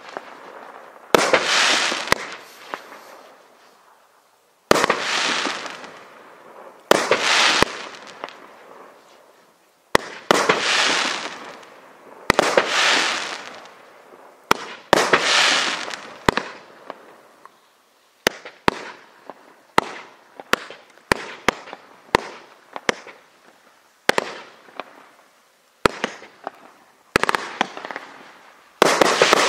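Raccoon Fireworks 'Captain Raccoon' 20-shot, 1.2-inch-tube fireworks cake firing shot after shot: each shot is a sharp report followed by a fizzing, crackling trail that fades over a second or two. Past the middle comes a quicker string of sharp single cracks.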